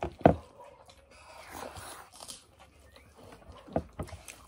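Eating sounds from hand-eating rice off metal plates: wet chewing and lip-smacking and fingers working rice on the plate, with one loud smack a moment in and two more near the end.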